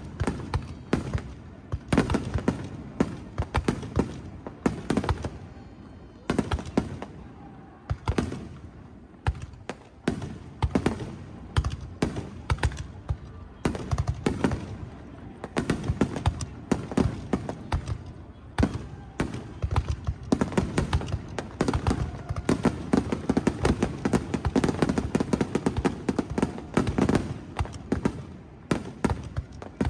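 Fireworks display: aerial shells bursting in quick, irregular succession, with sharp bangs and crackling over a low rumble, getting denser near the end.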